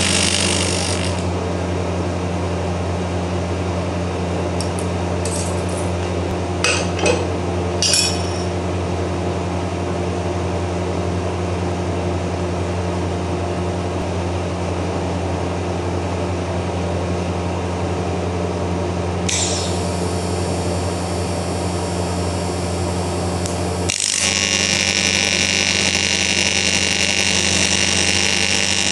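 AC TIG welding arc on cast aluminium buzzing, cutting off about a second in, while a steady low hum carries on underneath. A few sharp clinks follow as the part is handled. The arc starts again faintly at about two-thirds of the way through and then comes back at full strength for the last few seconds.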